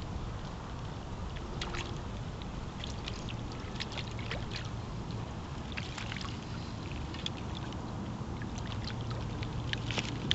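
Small waves lapping and splashing against a rocky shoreline in short, irregular slaps, over a steady low rumble of wind.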